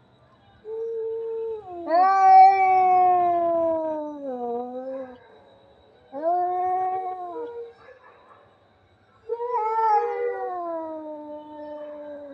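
A cat yowling: three long drawn-out calls, each sliding down in pitch. The first is the longest and loudest, a second shorter one comes about six seconds in, and the last one trails off near the end.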